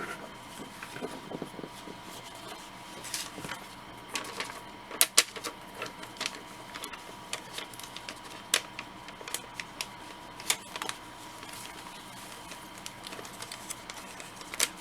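Comic book being handled in a stiff Mylar sleeve: irregular crisp crackles and clicks of plastic and paper, a few sharper ones about five, eight and ten seconds in, over a faint steady high tone.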